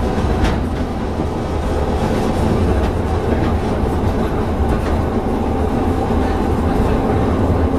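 Heritage Blackpool tram Railcoach 680 heard from inside its saloon while running: a steady rumble of the wheels on the rails, with a few short clicks and knocks.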